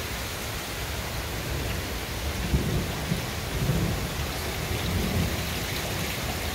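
Steady rain falling, with a low rumble of thunder rolling in about two and a half seconds in and lasting a few seconds.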